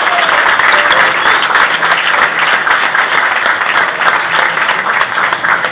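Audience applauding: many hands clapping at a fairly even level.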